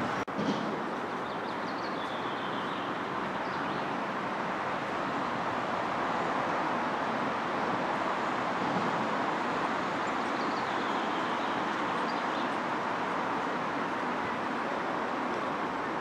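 Steady outdoor rushing noise, even and unbroken, with a few faint bird chirps now and then.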